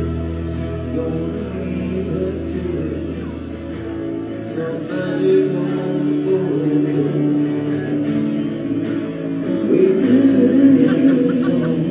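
Live band playing: a man singing over strummed acoustic guitar, bass and drums with light cymbal ticks. A deep bass note holds for the first few seconds, then drops away.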